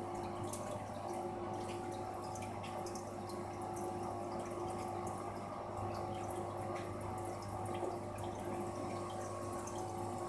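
Aquarium water trickling, with many small irregular drips and splashes over a steady low hum of running equipment.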